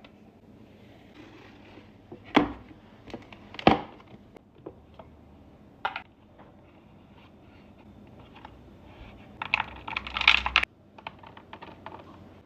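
Sharp clicks and knocks of lunch containers and food being handled while a lunch box is packed: three separate knocks in the first half, then about a second of rapid rattling and crinkling near the end.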